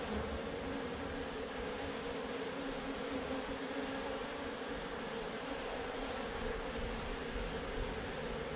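A colony of Africanized honey bees buzzing in a steady hum around a hive box as they are moved into it out of a tire.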